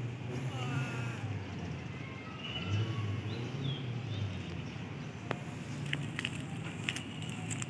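A steady low mechanical hum, like a running engine, with a few short high-pitched chirping tones in the first half and some light clicks in the last few seconds.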